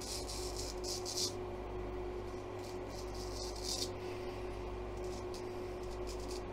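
Straight razor scraping through week-old stubble on the neck in several short strokes, over a steady hum.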